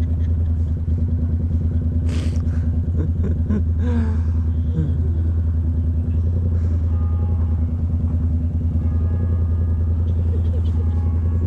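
Yamaha MT-07's parallel-twin engine idling steadily, a low, even pulsing throb at rest.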